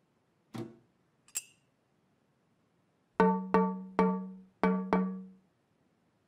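A metal teaspoon tapping a metal bread bin five times in a quick uneven run, each strike ringing with a pitched ding that dies away. A soft knock and a short click come a couple of seconds before the taps.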